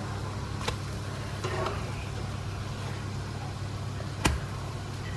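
Pancakes sizzling softly in a non-stick frying pan while a plastic slotted spatula is slid under them and flips them, with two sharp taps of the spatula against the pan, one under a second in and one about four seconds in, over a steady low hum.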